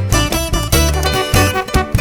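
Upbeat background music with plucked strings and a steady bass beat.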